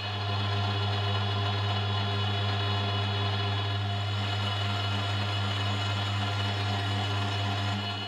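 Milling machine running a face mill across a gunmetal block, squaring the stock: a steady, even hum from the spindle and cut with no change in pitch.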